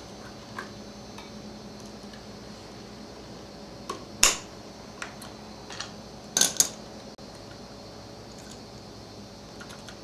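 Light metallic clicks and taps of a string trimmer's clutch weights and springs being handled and fitted by hand. A sharp click about four seconds in and a quick cluster of clicks about six and a half seconds in are the loudest.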